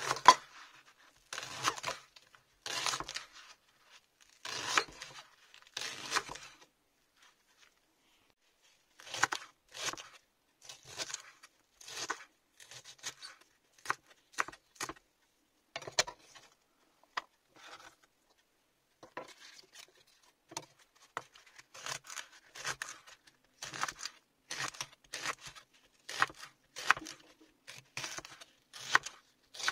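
Chef's knife slicing raw leeks on a wooden cutting board: crisp crunching cuts, roughly one a second, some ending in a sharp tap of the blade on the board, with a short pause about a third of the way through.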